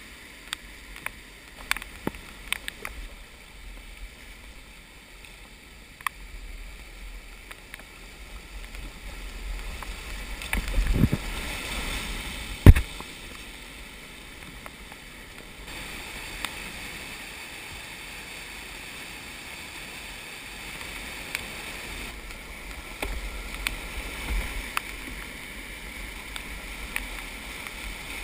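Rushing whitewater of a rocky river rapid heard from a small boat running it, with scattered knocks and splashes; a louder stretch of splashing peaks in one sharp thump about twelve or thirteen seconds in, the loudest sound.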